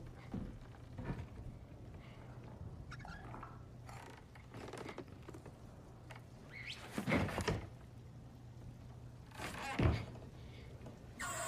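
A low steady hum with scattered knocks and thuds. The loudest is a cluster of thuds about seven seconds in, and another comes near ten seconds.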